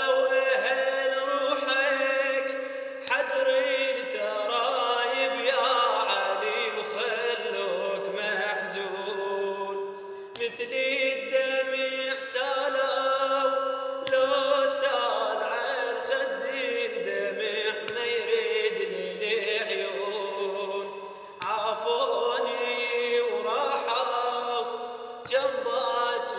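A man singing an Arabic chant in long, wavering melodic phrases over sustained accompanying tones, with brief pauses between phrases.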